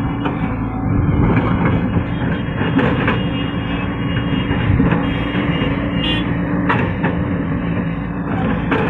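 Excavator's diesel engine running steadily, with a few sharp knocks along the way.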